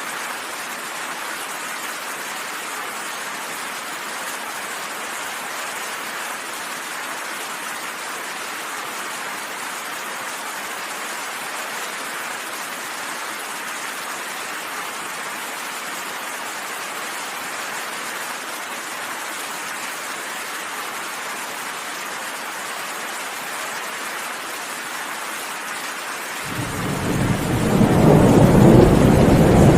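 Steady rain hissing, then a thunder rumble breaks in about three seconds before the end, swelling quickly into a deep, loud roll that is the loudest sound here.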